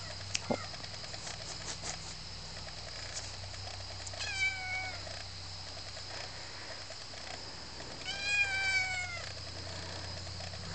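Chocolate point Birman kitten meowing twice, once about four seconds in and again about eight seconds in, each call about a second long and falling slightly in pitch.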